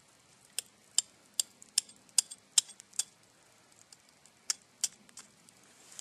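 An eggshell tapped lightly against a steel axe head: a run of sharp little clicks, about two and a half a second, then three more near the end.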